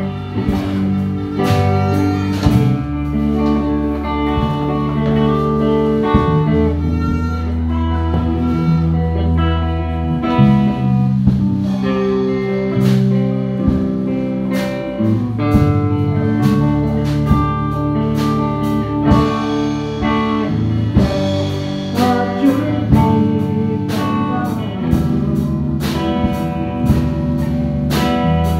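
Live band music: an electric guitar played through an amplifier over a drum kit keeping a steady beat, with sustained chords throughout.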